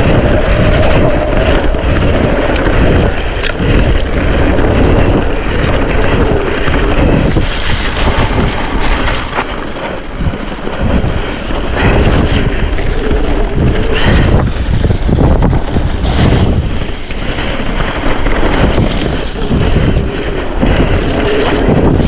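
Wind buffeting the microphone during a mountain bike ride on a wet, puddled trail, over the steady rolling noise of the tyres, with frequent knocks and rattles from the bike. It eases off for a moment about ten seconds in.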